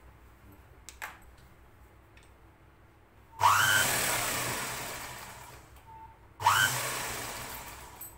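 Motorised Ghanshyam sewing machine stitching in two short runs of about two seconds each. Each run starts with a rising whine as the motor speeds up, then fades off. A small click comes about a second in.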